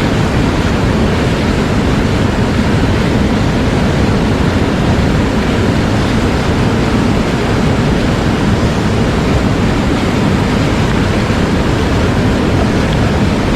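Rushing mountain stream: a steady, loud wash of fast water.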